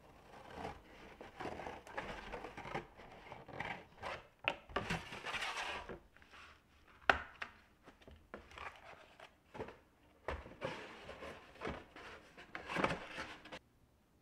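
Scissors cutting through a cardboard box with a rasping crunch for the first several seconds, then cardboard pieces being shuffled and knocked against a table, the sharpest knock about seven seconds in.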